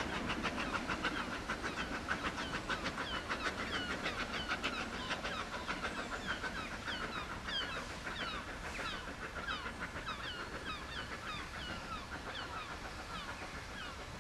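Isle of Man Railway steam tank locomotive No. 12 Hutchinson chuffing with rapid, even exhaust beats that fade as the train draws away. From a few seconds in, small birds chirp with short falling notes over the dying exhaust.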